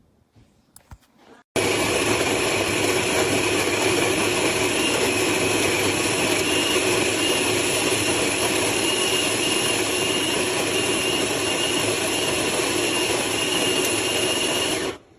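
Sboly electric conical burr coffee grinder running: a loud, steady motor-and-grinding noise with a faint high whine. It switches on suddenly about a second and a half in and cuts off just before the end.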